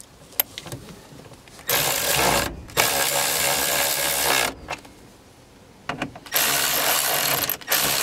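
Ratchet with a 9/16-inch socket tightening the steering column mounting bolts, running in several stretches of about a second each with short pauses between. A few light clicks come first.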